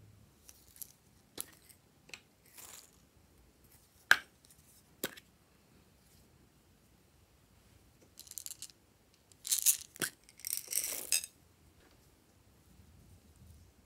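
Small plastic sprinkle bottles giving a few sharp clicks, then shaken out over slime in a glass bowl: confetti and small metal beads scatter and clink into the bowl in several short rattling bursts about two thirds of the way through.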